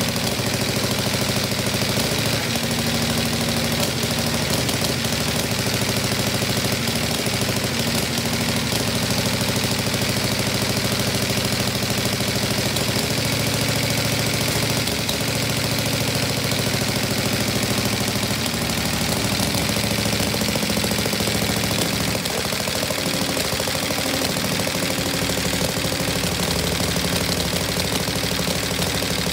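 The newly restored 1903 Clement V-twin's clip-on engine running steadily with rapid, even firing. Its speed shifts a little about midway as the handlebar controls are worked.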